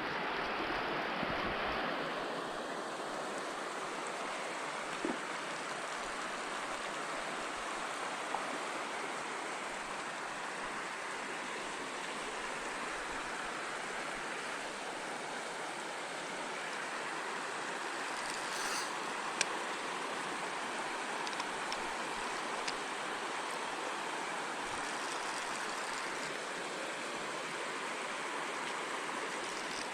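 Steady rush of a shallow mountain trout stream running over rocks, with a few faint small clicks and knocks.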